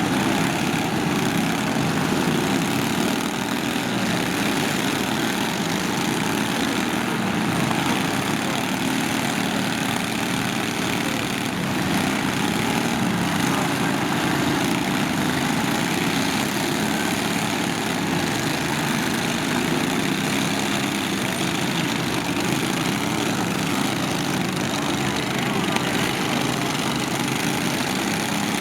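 Lawn tractor engines running steadily, their pitch wandering up and down as the throttles change.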